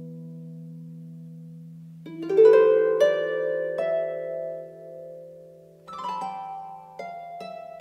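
Irish harp playing slowly: a low note rings and fades, then plucked, rolled chords enter about two seconds in and again near six seconds, each note ringing on as it decays.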